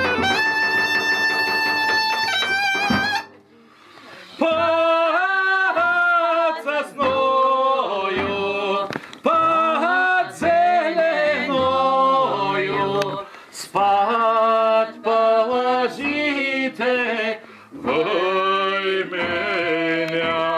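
Goatskin bagpipe (gaida) playing a tune over a steady drone, cutting off about three seconds in. After a short pause a man sings loudly without accompaniment, in long phrases with bending pitch, with a woman's voice joining him.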